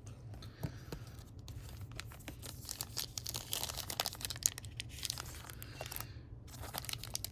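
A plastic trading-card pack wrapper crinkling and crackling as it is worked at by hand in a struggle to tear it open, with a brief pause near the end.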